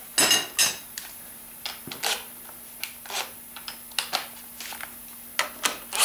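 Metal tools and sockets clinking against each other: two sharp, ringing clanks near the start, then scattered lighter clicks and taps.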